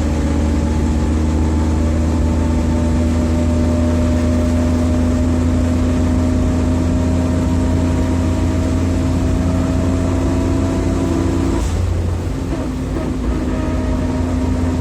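Suzuki Jimny JA11 driveline whining while driving, over a steady low rumble: a tonal whine that climbs slowly in pitch, drops out about twelve seconds in, and comes back a second or so later. The whine is the abnormal noise of chipped teeth on the differential pinion gear.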